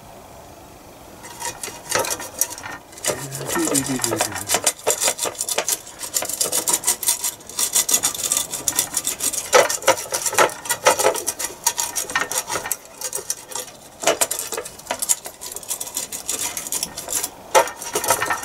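Pastry brush being scrubbed back and forth over the ridged non-stick plates of a sandwich toaster, spreading oil to season them: quick rasping brush strokes that start about a second in and carry on.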